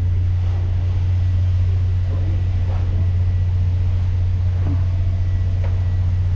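Hangkai 12 hp outboard motor running steadily, a constant deep drone.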